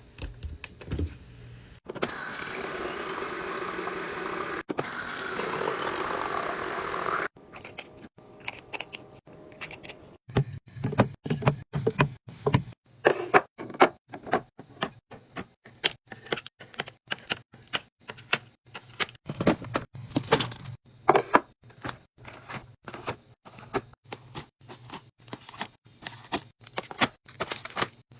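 Mini fridge being restocked: about five seconds of steady rushing early on, then a long run of irregular knocks and clatters, several a second, as items are set into the fridge.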